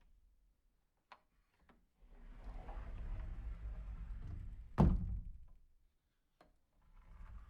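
Sliding closet door: two light clicks, then the door rolls along its track for about three seconds and stops with one loud thunk. A single click follows, and another slide begins near the end.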